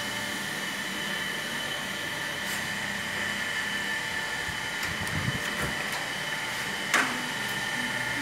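Steady machinery noise of a running diesel power plant, with a constant high whine over it. There are a few dull thumps about five seconds in and a single sharp knock about two seconds later.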